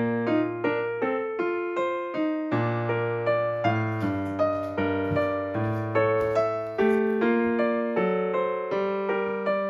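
Background music: a gentle electric piano melody, with notes struck two to three times a second over a steady low bass.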